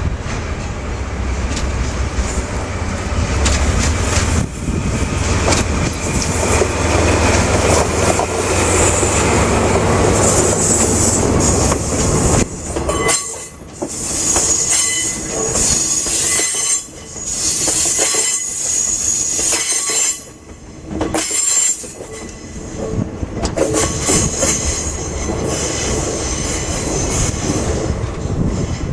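Freight train pulled by a DE10 diesel-hydraulic locomotive, with a brake van and three new diesel locomotives, rolling along a rail siding. A low engine drone dominates the first dozen seconds, then high-pitched wheel squeal sets in, with wheels clicking over rail joints.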